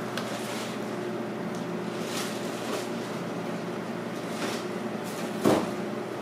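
Steady background hum of machinery with a few faint clatters, and one louder knock about five and a half seconds in.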